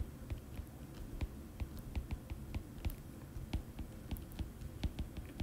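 Stylus tapping and scratching on a tablet's glass screen during handwriting: irregular light clicks, several a second, over a low background rumble.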